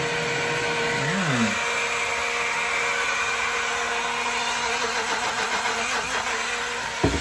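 Portable rechargeable personal blender running steadily, blending a drink, with a brief dip and recovery in motor pitch about a second in.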